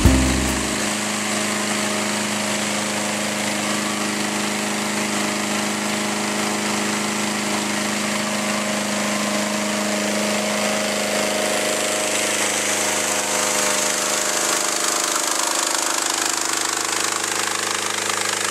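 Engine-driven inflator fan running at a steady speed, blowing air into a hot-air balloon envelope during cold inflation.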